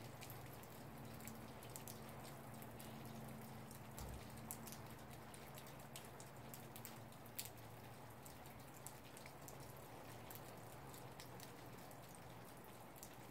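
Near silence: a faint low steady hum with a few scattered soft ticks.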